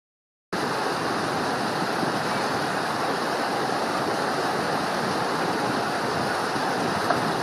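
Small rocky stream rushing and cascading over rocks, a steady rush of white water that starts abruptly about half a second in.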